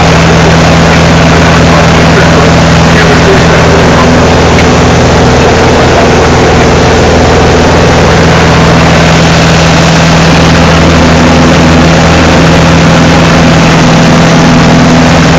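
Light aircraft's propeller engine running loud and steady, heard from inside the cockpit during the climb after takeoff.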